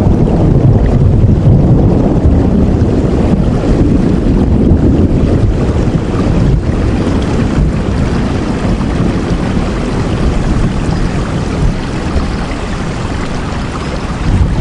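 Heavy rain falling steadily: a dense, even rushing noise, strongest in the low range.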